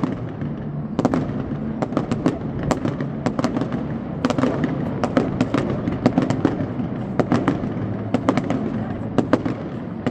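Fireworks going off: a rapid, irregular run of sharp bangs and crackles over a steady low background.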